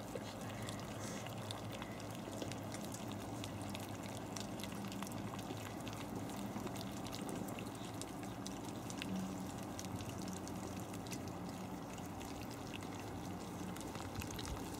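Havanese puppies eating soft food from a stainless steel pan: many small wet smacking and lapping sounds with little clicks against the metal, over a steady hiss.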